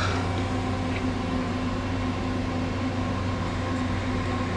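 Steady electrical and mechanical hum of a CNC lathe standing powered up with its spindle stopped, with a faint metallic tick about a second in.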